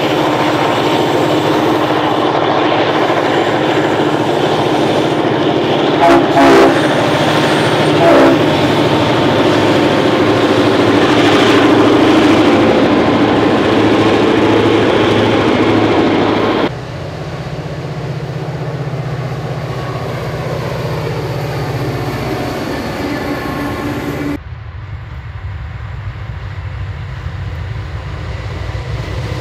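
EMD JT26C-2SS diesel-electric freight locomotives running under load past the line with their wagons rolling behind, the two-stroke diesels giving a steady low drone. The locomotive horn sounds twice, about 6 and 8 seconds in. The sound changes abruptly about 17 and 24 seconds in as it cuts to other trains.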